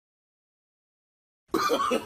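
Dead digital silence for about a second and a half, then a voice starts abruptly near the end.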